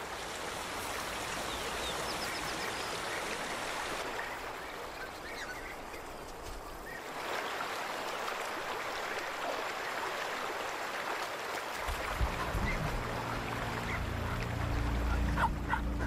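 Shallow stream running over rocks, a steady rush of water. About twelve seconds in, low held notes of background music come in under it.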